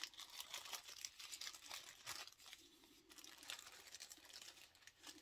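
Faint, irregular crinkling of the small packets of needles and accessories from a cross-stitch kit as they are handled.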